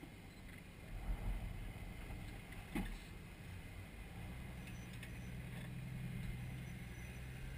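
Jeep Cherokee engine running at low revs, a steady low hum as the SUV crawls over rock, with a couple of short thumps about a second in and near three seconds.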